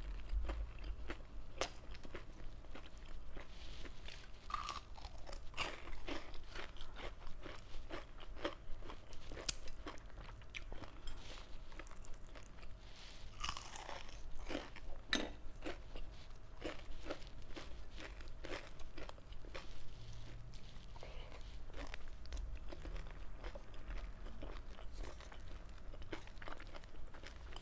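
A person chewing and crunching crisp fried galunggong (round scad), with many small, sharp crunches scattered throughout.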